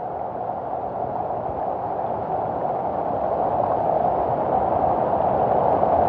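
Waterfall water pouring and splashing close by, a steady rushing noise that grows gradually louder.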